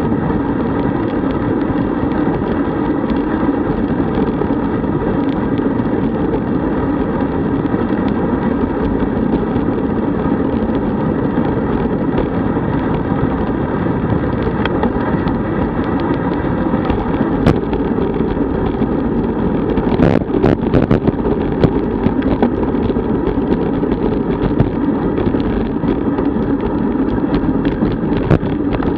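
Steady rush of wind and road rumble on a road bicycle's camera microphone while riding at speed. A few sharp knocks from bumps in the road come in the second half.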